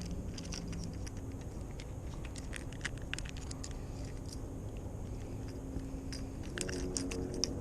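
Irregular sharp metallic clicks and light rattling of a squarebill crankbait's treble hooks and split rings as it is worked out of a small bass's mouth, over a steady low hum.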